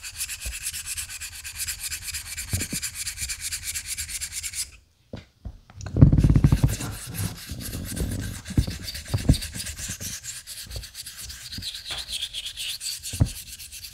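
Straight razor blade stroked back and forth on a soft Naniwa 1000 grit waterstone covered in thick slurry: a steady wet rubbing scrape. It drops out briefly about five seconds in, then resumes with a few low knocks.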